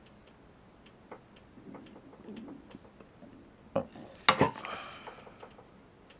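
Hard metal and plastic parts of an airsoft gas-blowback AR15 rifle being handled, with light scattered clicks. About four seconds in comes a sharper click, then two loud clacks that ring briefly.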